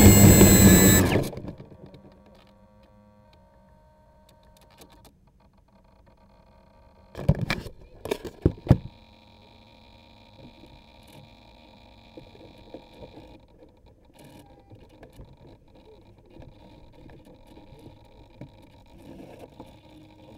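RC model plane's motor and propeller running with a whine that glides up and down in pitch, then cutting off suddenly about a second in. Several sharp knocks follow between about seven and nine seconds in as the plane is handled.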